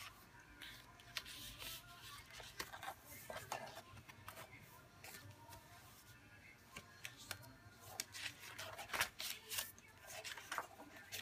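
Paper pages and inserts of a spiral-bound journal being turned by hand: irregular rustles and flaps, with a sharper one about nine seconds in.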